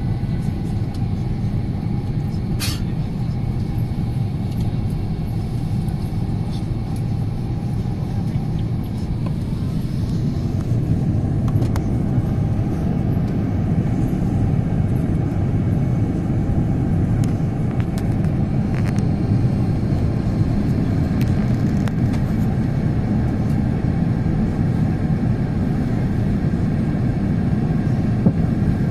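Steady cabin noise inside an Airbus A350-941 airliner on descent: a low rumble of airflow and its Rolls-Royce Trent XWB engines, growing slightly louder about ten seconds in. A brief click sounds about three seconds in.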